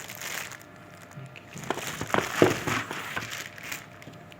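Handling noise from a laptop-tablet being moved about: a few light clicks and taps around the middle, with some rustling between them.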